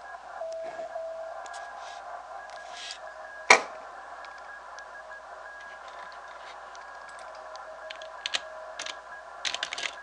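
Shortwave receiver audio from a Yaesu FT-891 on the 80-metre band: a Morse code tone keyed on and off in the first second, then steady band hiss with several faint, steady tones from other signals. A single sharp click cuts in about three and a half seconds in, and a few lighter clicks come near the end.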